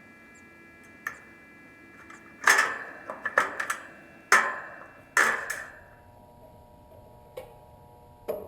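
Sharp metallic clicks and clanks of tools and parts being handled on an air-conditioning unit while its capacitor is tested. There are about seven separate knocks, the loudest in the middle of the stretch, over a faint steady hum.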